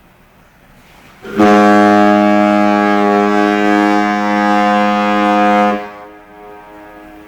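Ship's horn sounding one long, steady blast of about four seconds, starting a little over a second in and cutting off, with a fainter tone lingering after it. It is a horn salute, given in answer to a call for the ship to sound.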